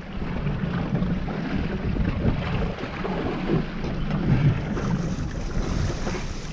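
Wind buffeting the microphone aboard a small boat at sea: an uneven low rumble with a hiss of water and air above it.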